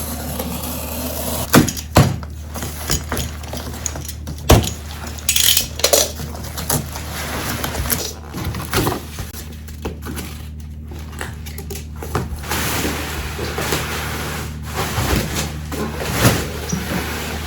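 Objects being handled and set down on a desk: scattered knocks and clicks with patches of rustling, over a steady low hum.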